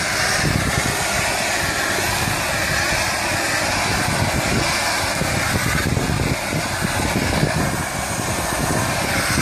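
Oxy-acetylene cutting torch burning with a steady rushing hiss.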